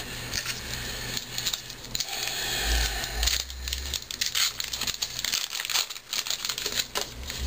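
A 2010 Topps 206 card pack being torn open, its wrapper crinkling and rustling in the hands as the cards are pulled out: a run of irregular crackles.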